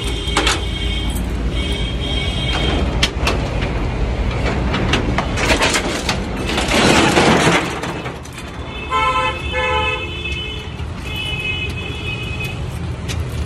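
Metal clicks and rattling at a shop's corrugated rolling shutter and its lock, with a louder rattling rush about seven seconds in. Vehicle horns toot several times in the street, two short beeps coming close together about nine seconds in.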